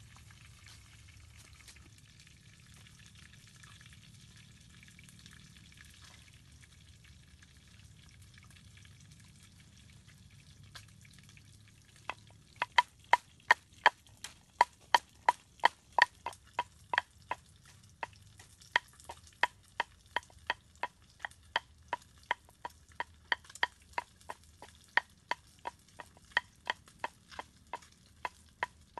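Wooden pestle pounding red chillies in a wooden mortar: sharp, even knocks about two and a half a second, starting about twelve seconds in after a faint steady hiss.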